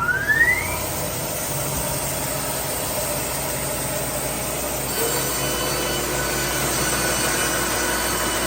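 Baker band sawmill starting up, its whine rising over the first second, then running steadily; about five seconds in a higher whine joins in.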